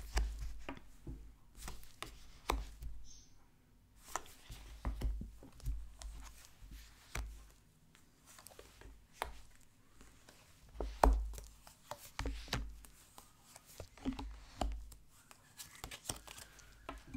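Tarot cards being handled and laid out on a table: irregular light taps and knocks, some with a dull thump, the loudest about eleven seconds in.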